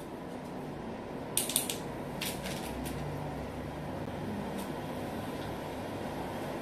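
A steady low background hum, with a few light clicks and taps: a cluster about a second and a half in and a few more just before the three-second mark.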